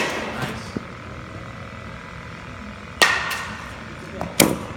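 Batting practice in an indoor batting cage: sharp cracks of a bat meeting machine-pitched yellow dimpled practice balls, with the ball striking the cage. One crack comes at the start, a crack and a lighter knock about three seconds in, and a loud crack near the end, each with a short echo from the hall.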